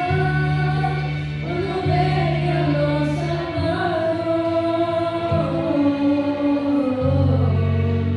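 A small group of children singing a song through microphones, over music with held low notes that change every second or two.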